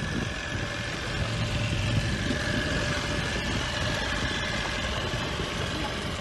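Small 5 hp outboard motor running steadily on the transom of a small sailboat, driving it slowly through the water.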